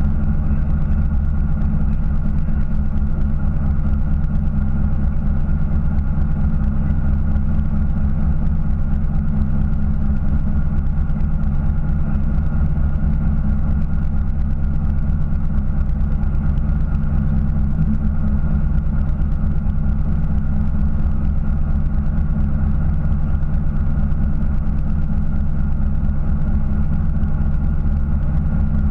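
Fishing boat's engine idling, a steady low-pitched drone that holds unchanged throughout.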